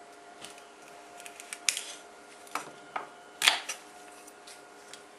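A knife cutting through a celery stalk on a wooden table: a handful of sharp clicks and crisp cracks, the loudest about three and a half seconds in.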